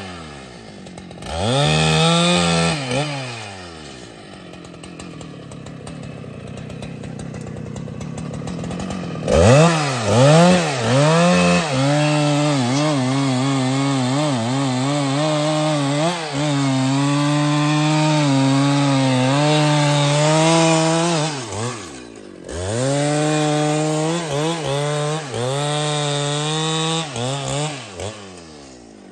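Husqvarna 395XP two-stroke chainsaw cutting wood. It revs up and down in short bursts, runs slower and quieter for a few seconds, then is held at high revs for two long stretches, with brief dips in between and a drop back near the end.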